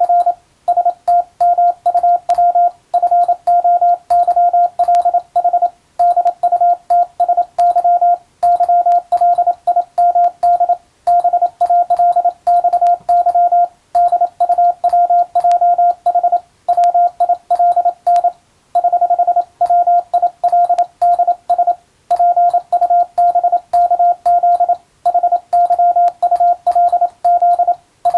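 Morse code keyed by hand at a steady, fast pace as a single mid-pitched tone switching on and off in dots and dashes, with brief pauses between words: a radiotelegraph operator sending an English-language telegram.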